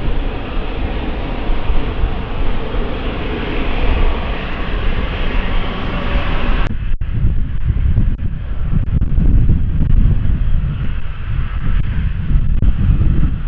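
Loud rushing noise of an airliner's engines at close range. It cuts off abruptly about halfway through, leaving a lower rumble with wind on the microphone.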